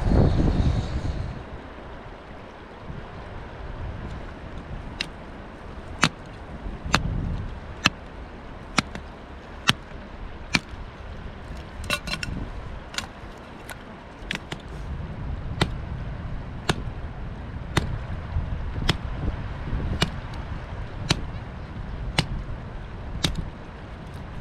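A series of sharp, short knocks, about one a second, over low wind rumble on the microphone.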